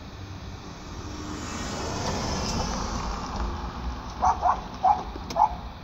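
Street traffic noise swelling and fading as a vehicle passes, then four short, loud sounds in quick succession near the end.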